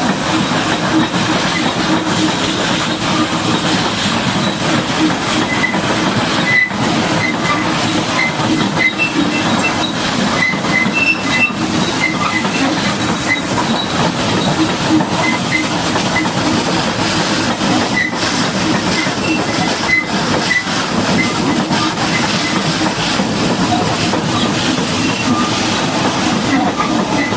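Steady loud hiss and rumble of a high-pressure water jet washing down a Caterpillar D8R bulldozer, with a low machine drone underneath.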